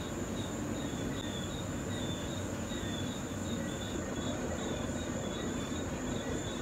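Insects chirping, a few short chirps a second, over a steady high-pitched drone and a low, even background rumble.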